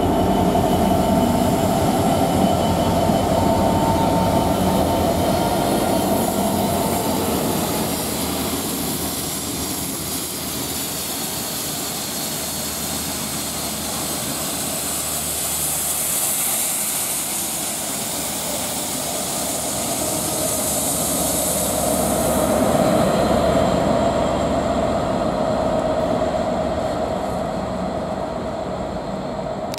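Two GBRf Class 66 diesel-electric locomotives, with their EMD two-stroke V12 engines, pass hauling a rake of wagons that rumble over the rails. The lead engine is loud at first. The wagons are quieter through the middle, with a high hiss for several seconds. The rear locomotive's engine grows loud again in the second half.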